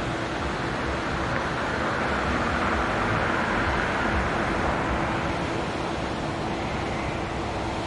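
Passenger coaches rolling slowly across a steel truss railroad bridge: a steady rush of wheel-on-rail noise that swells in the middle and eases toward the end, with a faint steady hum underneath.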